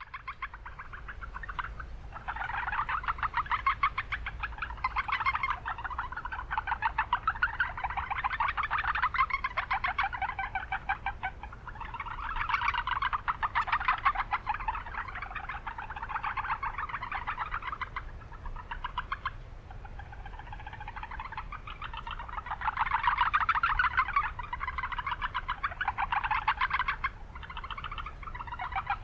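Several Japanese brown frogs (Rana japonica) calling in overlapping series of rapid pulsed notes, a chorus that swells and dips. A steady low rumble of urban background noise runs underneath.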